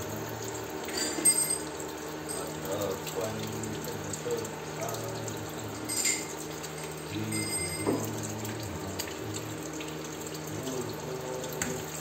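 Tap water running into a ceramic washbasin, with short splashes as a rose-ringed parakeet bathes in the stream and flutters its wings in the water.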